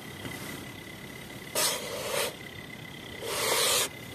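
Power inverter running with a steady high whine, broken twice by loud bursts of crackling buzz about half a second long, around one and a half and three and a half seconds in. The inverter has started humming and crackling, which may come from its cooling fan or from something else.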